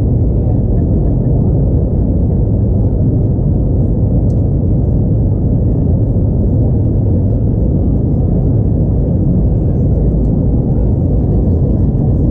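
Steady low rumble of an Airbus A321neo's CFM LEAP-1A engines and rushing air, heard from inside the cabin as the airliner climbs after takeoff.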